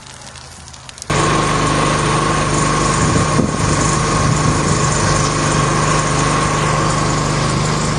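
A small engine running steadily at one constant speed, cutting in abruptly about a second in; before that, faint crackling.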